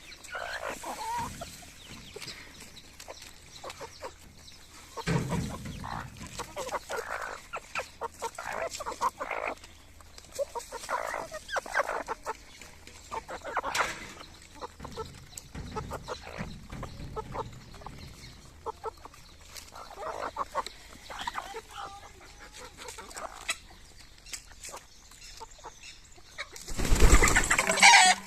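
Desi chickens clucking, with many short calls repeated throughout. Near the end comes a loud rushing noise lasting about a second.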